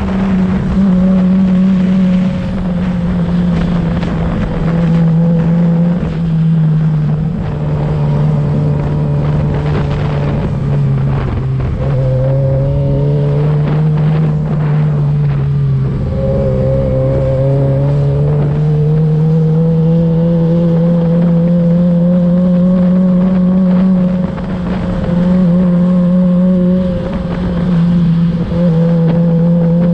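2007 Suzuki GSX-R600's inline-four engine running steadily under way, its note sinking slowly for the first half and then rising and holding, with wind rush over the microphone.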